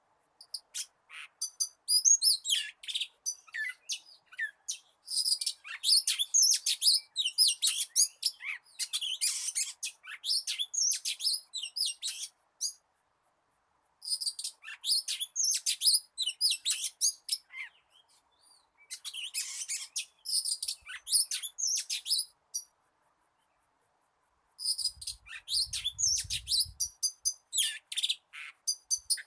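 Oriental magpie-robin singing a wild-type song used as a trapping decoy: rapid, varied high-pitched whistles and chatters in phrases several seconds long, broken by short pauses.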